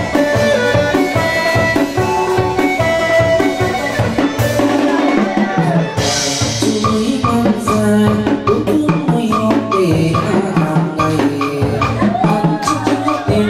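Live chầu văn ritual music: a đàn nguyệt (moon lute) plucks a melody over drums that keep a steady, driving beat.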